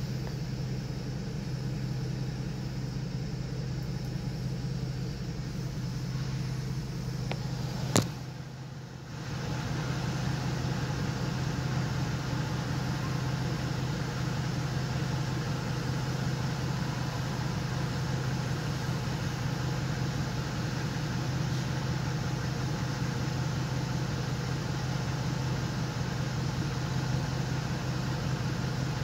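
Car engine idling steadily, with one sharp click about eight seconds in.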